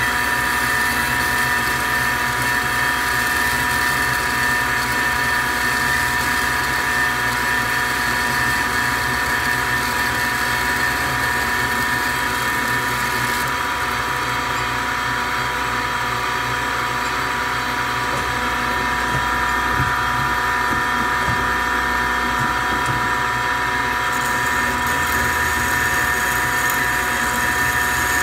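DoAll C-305A automatic horizontal band saw running: a steady mechanical drone with a held whine. In the middle stretch the high hiss thins for about ten seconds, then returns.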